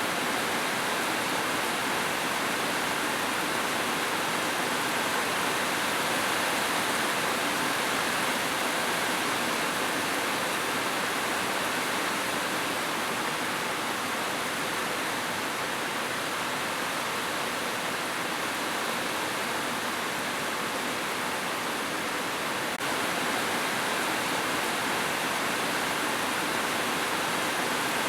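Steady rushing water, an even unbroken wash of noise.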